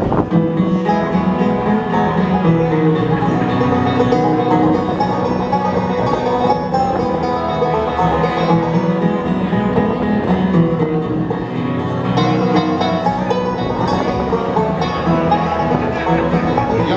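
Live bluegrass band playing an instrumental passage, with rapid banjo picking over guitar.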